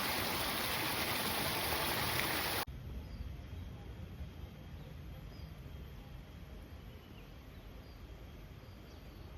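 Water rushing along an irrigation channel that feeds the rice fields, cutting off abruptly a little under three seconds in. After the cut comes a much quieter outdoor background with a few faint bird chirps.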